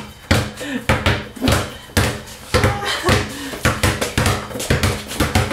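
Two basketballs being dribbled on a hard floor: a quick, uneven run of bounces, about three a second, the two balls out of step with each other.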